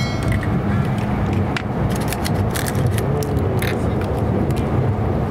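Plastic capsule-toy shells and cellophane wrappers clicking and crinkling as they are opened and handled, with short scattered clicks over a steady low rumble.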